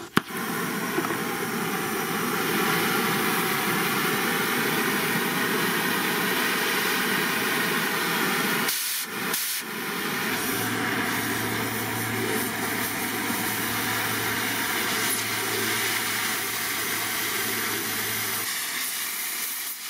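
Oxy-acetylene cutting torch flame hissing steadily, the oxygen pressure set far too high. The hiss cuts out briefly twice about nine seconds in. A low hum joins from about ten seconds in while the torch cuts into the steel plate.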